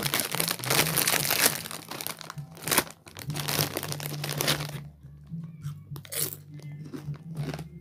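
Foil crisp packet crinkling and rustling loudly as a hand rummages inside it, then, about five seconds in, quieter crunching of a potato crisp being bitten and chewed.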